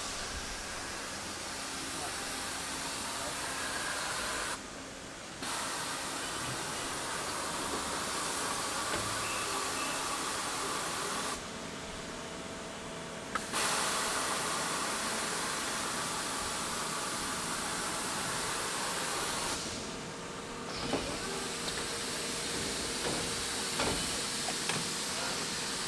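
Machine-shop noise from a working CNC machining and robot cell: a steady hiss that cuts out briefly every seven or eight seconds, with a few light knocks near the end.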